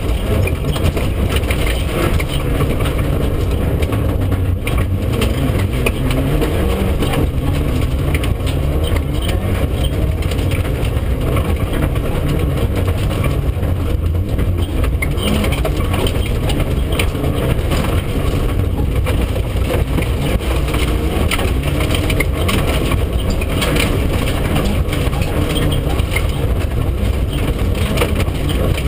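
Mitsubishi Lancer Evolution IV rally car's turbocharged 2.0-litre four-cylinder engine running hard, heard inside the cabin, with gravel and stones rattling against the underside as it drives flat out on a loose gravel stage.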